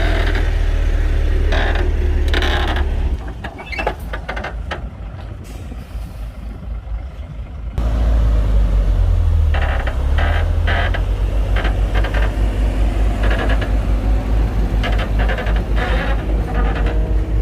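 Komatsu D58P crawler bulldozer's diesel engine running with a heavy low rumble and intermittent clanks. The engine sound drops away about three seconds in, then comes back loud and pulsing at about eight seconds.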